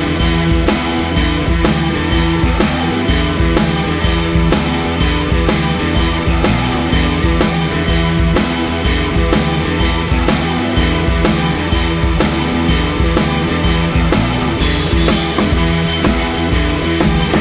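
Rock background music with a driving drum-kit beat.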